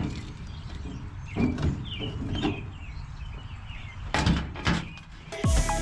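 A few knocks and thuds, the loudest about four seconds in. Background music comes in near the end.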